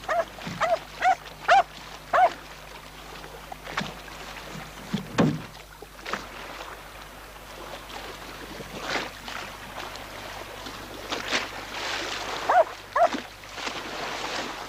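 Small shaggy dog giving five short, high-pitched yips in about two seconds, then two more near the end, with a few knocks in between and a low steady hum underneath.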